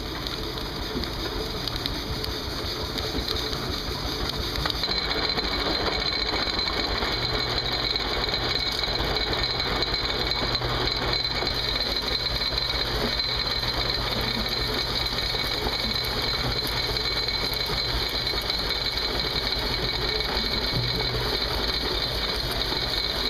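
Engine-driven machinery running steadily at an even speed, with a thin high whine joining about five seconds in.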